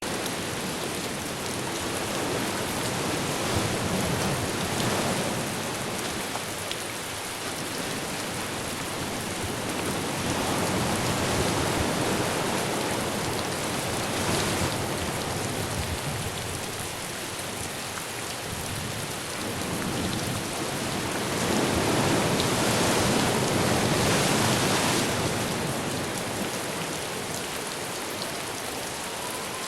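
Heavy rain pouring steadily in a windy storm, the rush swelling louder and easing off in long gusts every several seconds.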